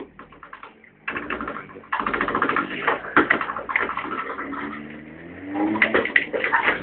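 Engine of a towing vehicle running as it pulls a sled across a bumpy stubble field, with a steady clatter and rattling of the rough ride that gets loud about a second in.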